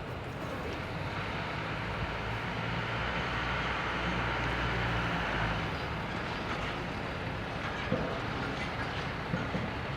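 Jet engines of an Air Busan Airbus A321 departing at takeoff power, heard as a continuous engine noise with a low rumble. It swells to its loudest about four to five seconds in, then eases slightly.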